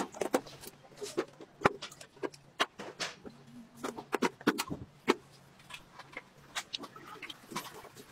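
Plastic pull-cap on a square metal cooking-oil tin being worked open: irregular sharp clicks, snaps and taps of plastic against thin sheet metal.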